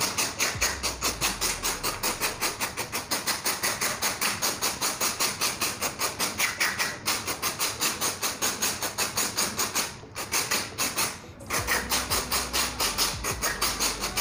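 Aerosol throttle-body cleaner sprayed through a straw nozzle onto a throttle body, hissing steadily with a fast, even pulse and breaking off briefly twice near the end.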